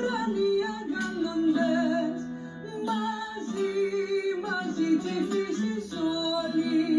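Music: a woman singing to guitar and plucked strings over a steady low held note, in what is set up as a Cypriot Christmas song.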